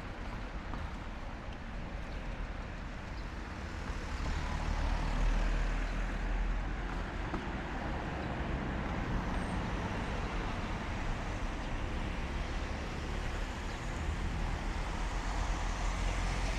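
Road traffic on a city street: cars driving past close by, engine and tyre noise with a low rumble that swells about four seconds in, as a vehicle passes near.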